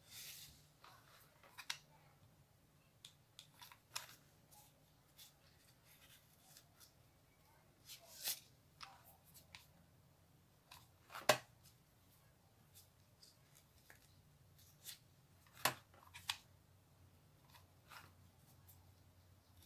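Scattered small clicks, taps and rustles of hands rolling satin ribbon into a rose and working a hot glue gun against it. A few sharper clicks stand out, about 8, 11 and 16 seconds in.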